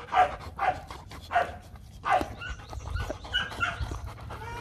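Rottweilers giving short, muffled barks and huffs, four of them in the first two seconds, then quieter snuffling and mouthing at a hand.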